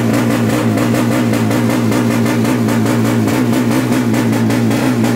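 Drag-racing motorcycle engine running loud at steady, held revs, its pitch wavering slightly.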